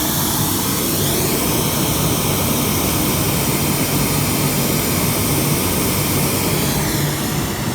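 Pink noise played loudly through an Alto TS212 12-inch two-way powered speaker during a sound test, a steady even hiss. Its tone sweeps briefly about a second in and again near the end.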